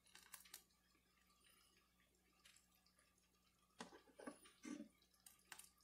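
Near silence, with faint drips and a few light, scattered taps as a slotted spoon lifts poached cod chunks out of a pot of hot water.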